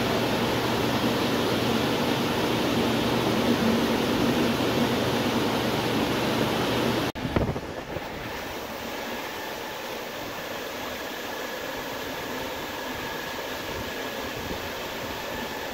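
Aqua Vulcan 7.5 kW aerator churning wastewater: a loud, steady rush and splash of turbulent water with a low hum beneath. About seven seconds in it cuts off abruptly to a quieter, steadier rush of aerated water with a faint high whine.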